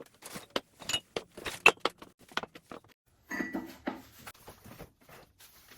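Glaze-fired ceramic pots being picked up and set down on a hard surface: a run of sharp clinks and knocks, with a denser cluster of knocks about three and a half seconds in.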